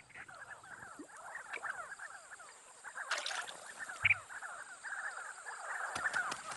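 Flock of sandgrouse calling at a waterhole: a dense, continuous chatter of short falling chirps that grows busier toward the end. A brief soft thump comes just after four seconds in.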